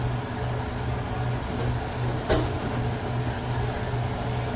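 Steady low machine hum, with one sharp click a little over two seconds in.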